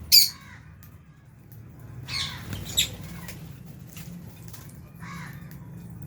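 Lovebirds calling: a loud, sharp shriek right at the start, a harsher burst of calls about two seconds in, and a fainter call around five seconds in.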